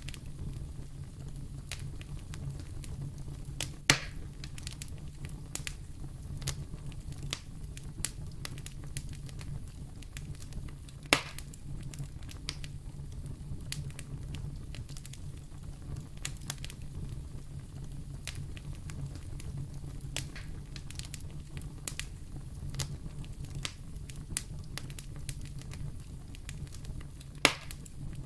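Wood fire in a fireplace crackling steadily over a low rumble, with many small snaps and three louder pops: about four seconds in, about eleven seconds in, and near the end.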